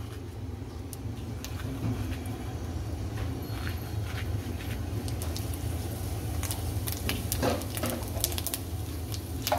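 Cumin seeds crackling and ticking as they land in hot ghee and begin to fry, over a steady low hum. The crackles are scattered at first and come thicker in the second half.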